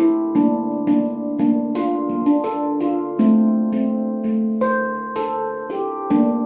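Handpan being played: a steady flow of struck notes, about two to three a second, each ringing on with bright overtones and overlapping the next.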